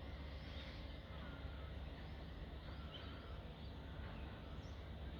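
Faint outdoor ambience: scattered bird chirps and short whistled calls over a low, steady rumble.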